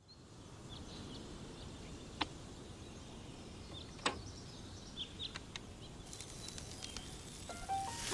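Quiet steady background noise with faint, short high chirps, like small birds, and two sharp clicks, a little over two seconds in and about four seconds in. Music comes in near the end.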